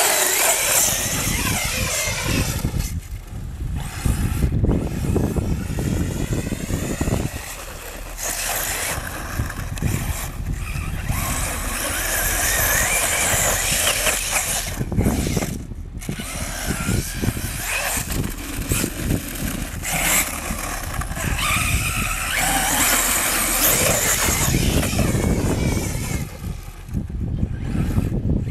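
TP-Power 4050 2200kv brushless motor on 6S LiPo driving an RC buggy on sand, whining and rising and falling in pitch as the throttle is worked, with a few brief drop-outs.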